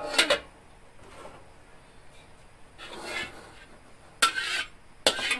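Metal spatula clanking and scraping against a metal wok with hot oil in it: a few sharp clanks, the loudest a little after four seconds in, with quieter scraping between.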